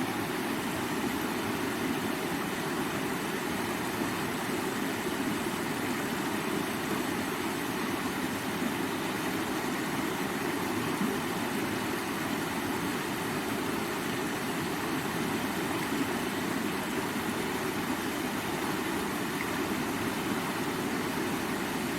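Steady rushing of flowing river water, an even, unbroken wash with most of its weight in the lower middle range.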